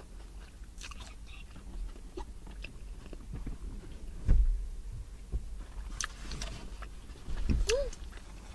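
Close-up chewing and biting into a cheese-filled corn dog, with small wet mouth clicks. Two dull thumps stand out, about four seconds in and again near the end.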